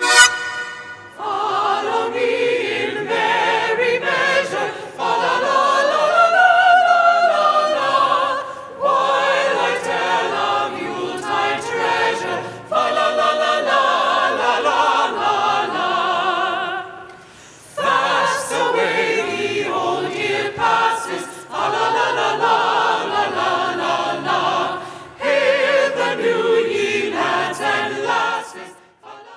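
A choir singing, in phrases broken by short pauses for breath.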